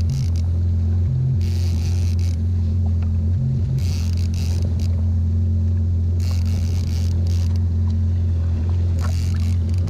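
Jet ski engine running at a steady low drone, with bursts of water splashing and rushing along the hull every two to three seconds.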